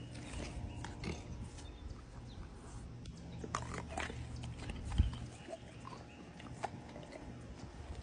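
Dogs taking chunks of raw meat from a hand and chewing them: a run of irregular smacks and clicks, with one sharper knock about five seconds in.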